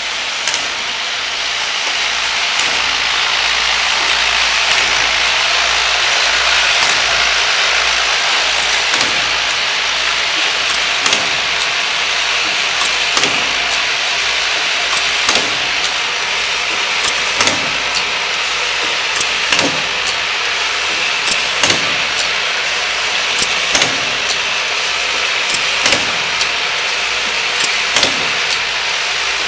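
Child-resistant cap assembly and lining machine running: a steady mechanical whir and hiss with sharp clicks about once or twice a second, coming more often in the second half.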